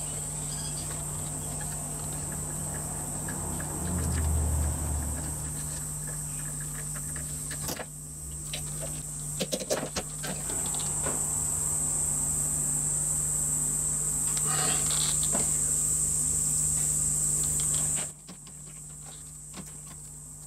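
A steady high-pitched electrical whine over a low hum, both cutting off about 18 seconds in, with a few faint metallic clicks.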